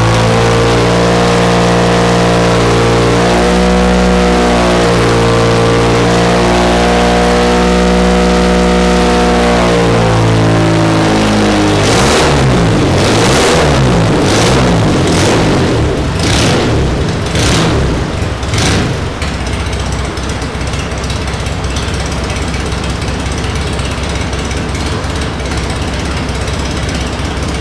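Carburetted Maserati 2670 cc V6 from a Citroën SM running on a test bench, held at steady high revs for about twelve seconds. Then the revs drop, with a string of sharp cracks about once a second for several seconds, and the engine settles into lower, steady running.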